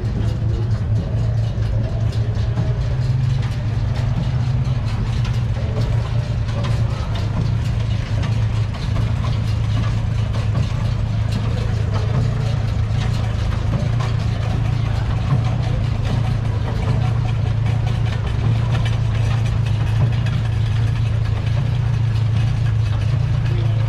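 Ferguson tractor engine running steadily at a constant speed, with a strong low hum.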